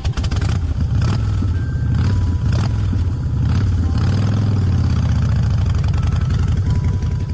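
Motorcycle engine running with a fast, even firing beat, the revs rising and easing off again around the middle.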